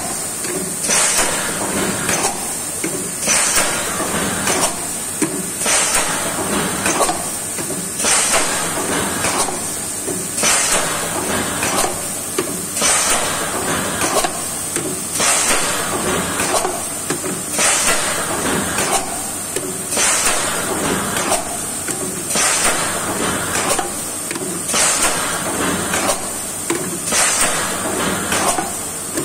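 Single-cavity PET bottle blowing machine running in automatic cycle, about one cycle every 2.4 seconds: each cycle a sharp hiss of compressed air with mechanical clacks, over a steady high hiss.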